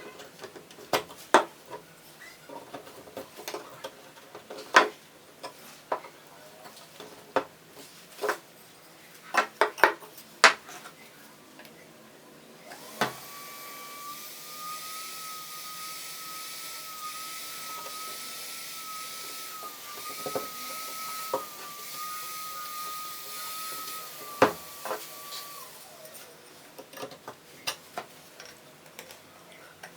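Scattered knocks and clicks of wooden chair parts being handled, then a small electric motor runs steadily for about twelve seconds with a high whine, stopping near the end, followed by a few more knocks.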